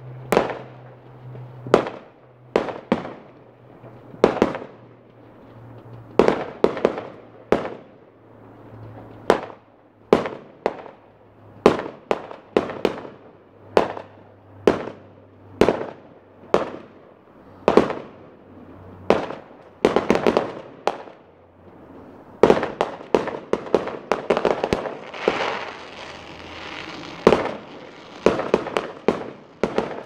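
Aerial fireworks bursting, one sharp bang after another every second or so. About two-thirds of the way in they come in a denser run of bangs with crackling.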